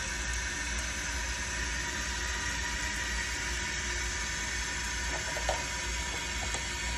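Glacier Bay toilet tank refilling through its fill valve, a steady hiss of water running in after the supply has been turned back on. A faint click about five and a half seconds in.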